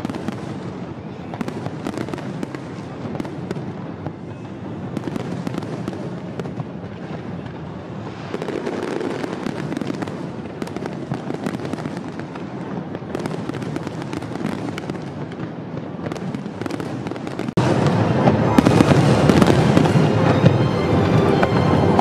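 A fireworks display with shells bursting in quick succession and a dense crackle throughout. About three-quarters of the way through it suddenly turns louder and thicker, a heavier barrage.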